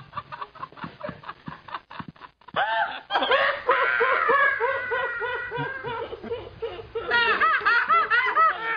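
A woman laughing hard: short breathy laugh pulses at first, then from about three seconds in long, high-pitched, wavering laughter.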